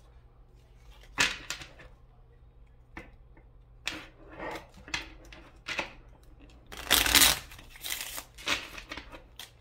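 Hands shuffling a deck of love-message oracle cards, a string of short, irregular papery riffles and slides, the loudest about seven seconds in.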